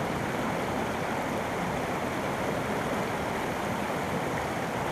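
Shallow creek water running steadily over rocks in a riffle.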